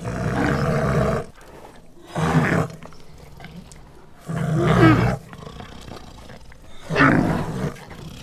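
A large animal calling four times, roughly every two seconds, each loud call lasting about half a second to a second.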